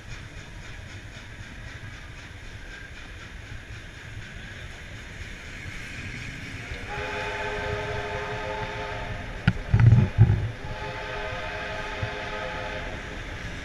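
Passenger carriages rolling slowly past with a steady low rumble. About seven seconds in a train whistle starts a long multi-tone blast, broken around ten seconds in by a few loud low thumps, then sounding on until near the end.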